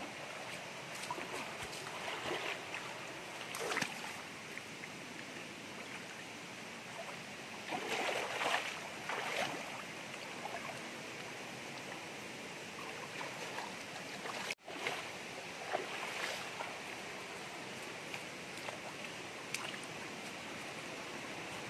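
Shallow rocky stream running steadily, with splashing from hands working in the water several times in the first half. The sound cuts out for an instant about two-thirds of the way through.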